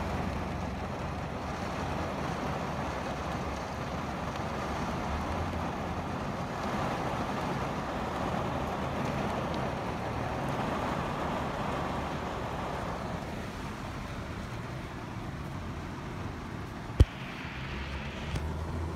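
Heavy rain falling, a steady hiss with a low rumble underneath, thinning somewhat in the last few seconds. A single sharp click near the end.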